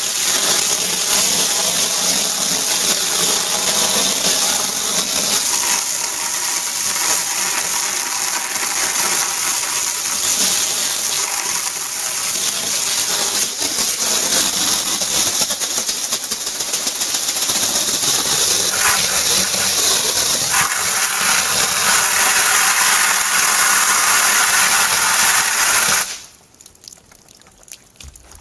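A high-pressure water jet blasting a hornet nest and the shed wall and eaves beneath it: a loud, steady hiss and splatter of water that cuts off suddenly near the end.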